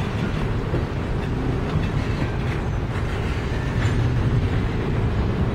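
Freight cars loaded with trash containers rolling past at low speed: a steady low rumble of steel wheels on the rails, with a few faint clicks.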